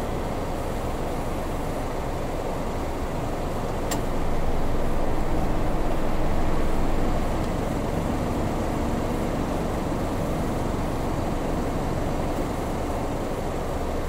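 Steady low rumble of distant road traffic, swelling for about three seconds as a vehicle passes, with a single faint click about four seconds in.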